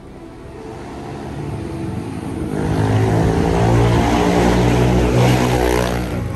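Small motorbike engine droning, growing louder over the first few seconds and staying loud, then dropping away sharply near the end as a scooter passes close by.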